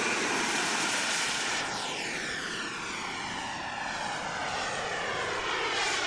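An aircraft flying past: a steady rushing engine noise with a sweeping, falling phasing that starts about a second and a half in as it passes overhead.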